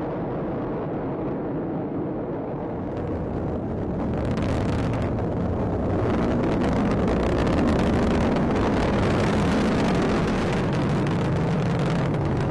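Atlas V rocket's main engine and solid rocket boosters firing during ascent: a continuous deep rumble that grows louder and harsher, with crackling, from about four seconds in.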